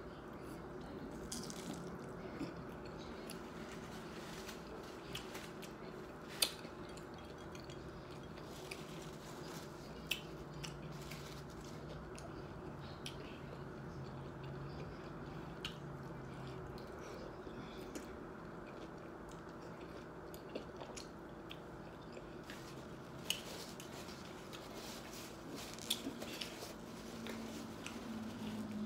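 Close-up chewing and biting of a taco, with scattered sharp mouth clicks and smacks over a faint steady hum.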